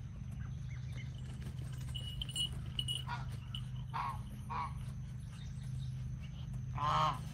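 Short, honking animal calls, four in all, the loudest near the end, over a steady low hum, with a few high chirps about two seconds in.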